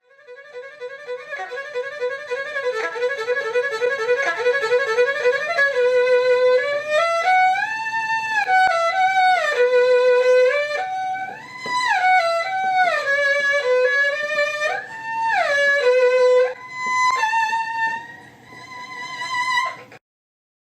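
Solo erhu playing: a quickly repeated note, swelling up over the first few seconds, then a slow melody with sliding pitch bends and vibrato that stops abruptly near the end.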